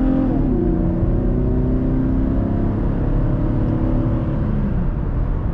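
2015 Chevrolet Camaro's 3.6-litre V6 engine running under way. Its note falls just after the start as the revs come down, then holds nearly steady, easing lower, with another small drop near the end.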